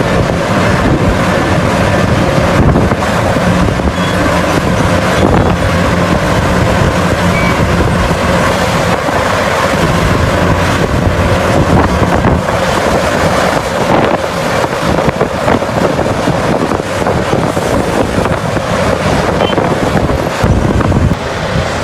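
Large diesel engine of heavy mining equipment running steadily under load, with wind buffeting the microphone. It drops a little in level near the end.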